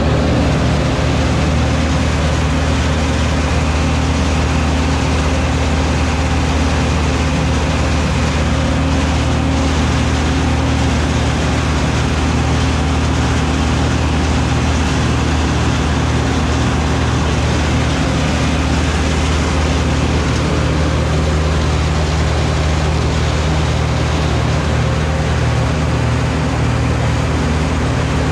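Farm tractor's diesel engine running loud and steady at constant speed, with no change in pitch or level.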